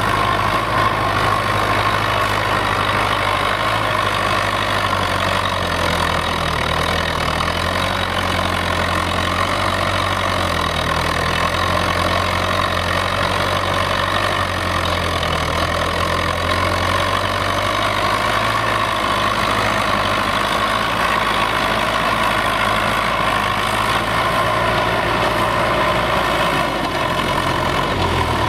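Belarus MTZ-82 tractor's diesel engine running steadily under load while pulling a plough through frozen ground, its note shifting slightly now and then.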